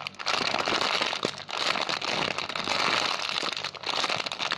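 Plastic packaging crinkling and crackling as it is handled.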